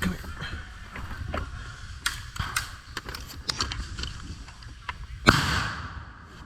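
Footsteps and gear rustling on an airsoft field, with scattered sharp clicks. About five seconds in comes one loud close crack with a short hissing tail.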